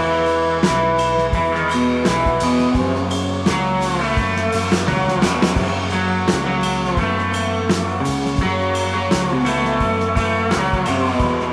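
A rock band playing an instrumental, blues-tinged passage: guitar over bass and a steady drum beat, with no singing.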